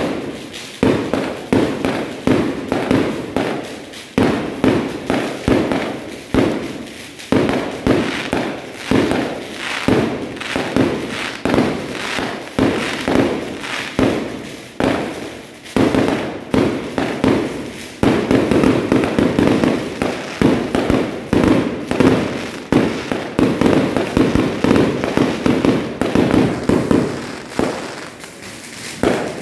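Aerial fireworks going off in quick succession: a string of sharp bangs and crackles that thickens into a dense, unbroken barrage a little past halfway, easing off near the end.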